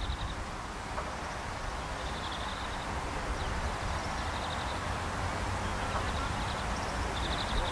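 Outdoor meadow ambience: wind buffeting the microphone with a low rumble, and short, rapid chirping trills that come again every second or two.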